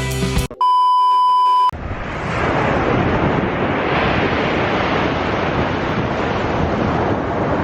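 A steady, high-pitched electronic beep lasting about a second, then a steady rushing of surf and wind buffeting the microphone.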